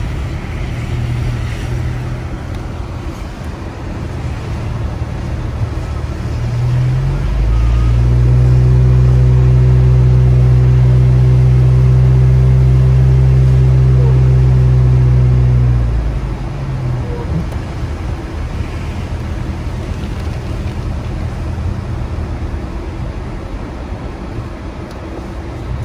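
Car driving on a slushy, snow-covered road, heard from inside the cabin: steady engine and tyre rumble, with a louder steady low drone from about 7 s in to about 16 s in.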